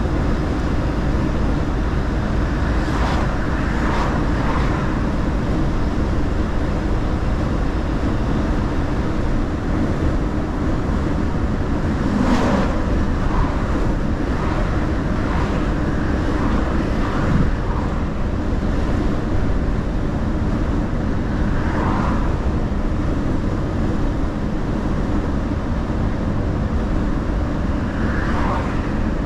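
Mercedes-Benz Actros L truck driving at road speed: a steady drone of engine, tyre and wind noise, with a few brief swells of higher noise.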